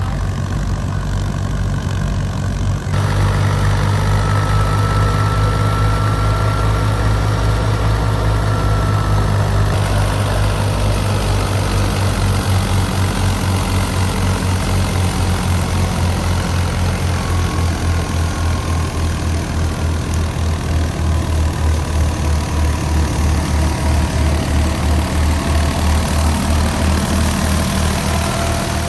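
A Fiat 480 tractor's diesel engine running steadily, driving a wheat thresher, with the thresher's dense rushing noise over the engine's low pulse. It grows louder and fuller about three seconds in.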